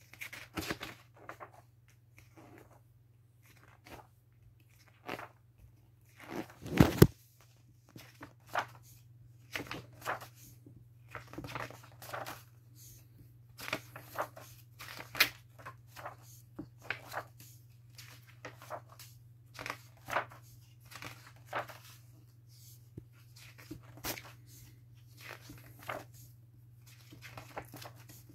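Glossy pages of a large hardcover book being turned and handled: repeated short rustles and flicks at an irregular pace, with one louder bout of thumps about seven seconds in.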